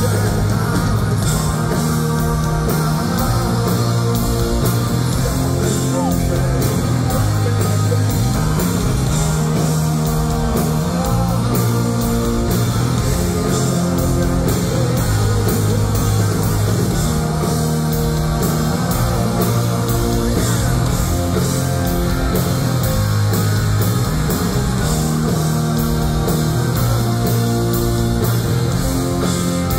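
Punk rock band playing live, with distorted electric guitars, electric bass, a driving drum kit and a sung lead vocal, loud and unbroken.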